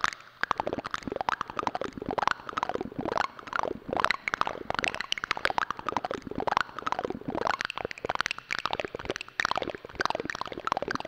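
Continuous bubbling and gurgling, a dense run of short rising and falling pops like liquid bubbling.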